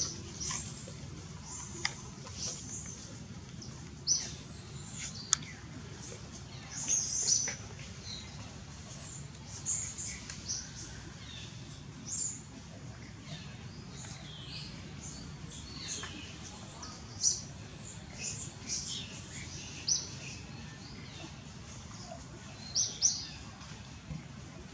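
Short, high-pitched chirping calls, scattered irregularly, a few every couple of seconds, over a steady low background hum.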